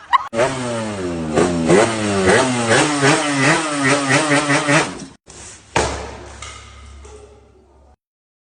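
An engine revving in quick repeated blips, its pitch rising again and again for about five seconds. After a short break comes a sudden thump, then a low hum that fades away.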